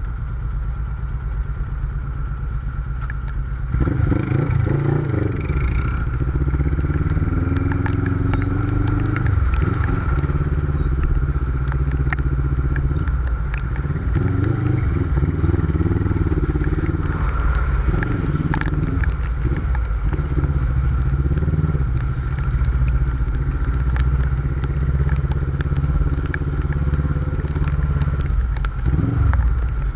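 Suzuki GS500's air-cooled parallel-twin engine riding in traffic: low and steady for the first few seconds, then louder from about four seconds in, its revs rising and dropping again and again as the throttle opens and closes.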